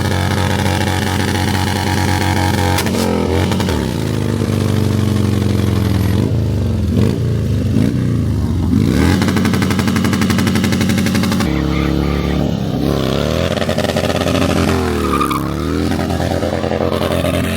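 Motorcycle engine running steadily, then revving up and down over and over as it is ridden hard, typical of stunt riding.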